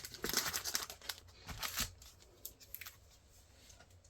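Packaging and paper items being handled: a run of short rustles and crinkles in the first two seconds, then only faint handling.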